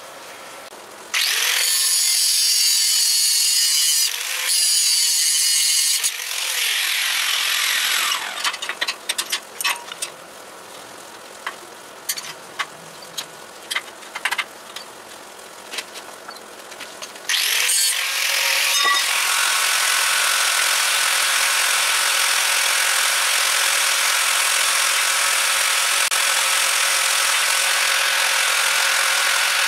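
Angle grinder grinding the point of a steel chisel. It runs in two bursts and then winds down, falling in pitch. A run of knocks and clinks follows while it is off, and then it grinds steadily from a little past the middle onward. The chisel steel is very hard to grind.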